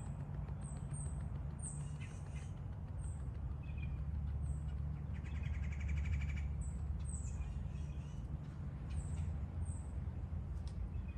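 Birds chirping: short high chirps repeated throughout, with a rapid buzzy rattle about five seconds in, over a steady low rumble.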